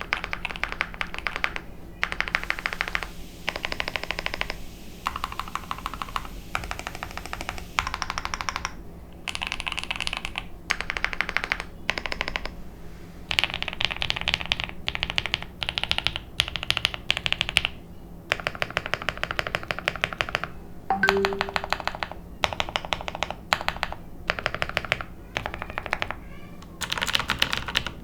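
Mechanical keyboard being typed on fast, in runs of rapid keystrokes a second or two long separated by short pauses.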